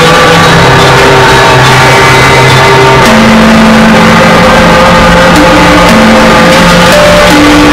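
Noisy electronic music: held synthesizer tones over a dense wash of noise, with the chord moving to a new set of notes about three seconds in.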